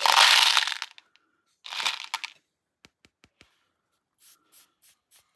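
Crunching and crackling of slime mixed with hard candies being cut. A dense crackle ends about a second in, a short crunch follows near two seconds, then a few faint clicks and four short soft crunches near the end.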